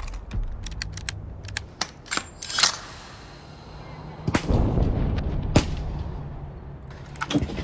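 Gunshots: several sharp reports spaced a second or more apart, over a low rumble.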